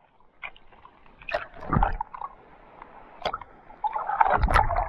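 Seawater sloshing and splashing against a camera held at the waterline and dipping under, with irregular gurgles and splashes that grow louder near the end.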